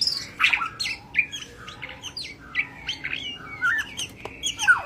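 White-rumped shamas calling in a rapid, varied run of short sharp chirps and whistled notes, several sweeping down in pitch, with a longer falling note near the end.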